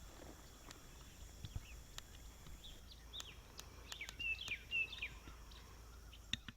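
Small songbirds chirping in woodland, a quick run of high calls and glides loudest about four to five seconds in, with scattered sharp clicks and a faint low rumble beneath.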